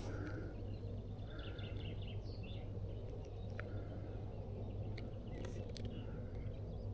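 Birds calling: a few short, soft calls spaced a second or two apart and some higher chirps, over a steady low rumble, with a few sharp clicks about halfway through and again near the end.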